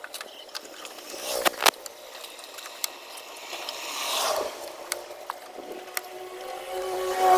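Hands handling the idle air control valve's wiring connector and the rubber hoses beside the throttle body: scraping with sharp plastic clicks, two of them close together about a second and a half in. A rising whine begins near the end.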